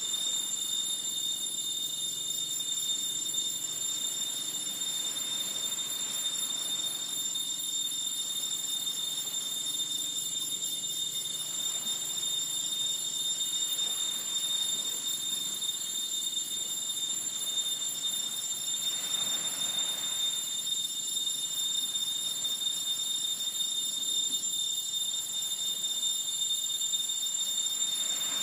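Steady high-pitched insect chorus, an unbroken shrill tone over a fine pulsing buzz. A soft rush of noise swells about 19 seconds in and again near the end.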